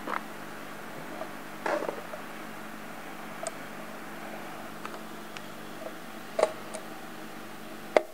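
Silicone intake hoses and an aluminium charge pipe being handled and pushed together: scattered light knocks, clicks and rubs, the sharpest near the end, over a steady low hum.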